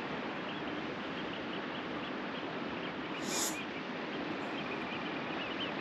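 Steady wash of surf and wind, with birds calling in a rapid series of short high notes over it, and a brief hiss about halfway through.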